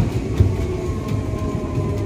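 Heritage tram running on its track: a steady low rumble with regular low knocks from the wheels and a faint steady whine.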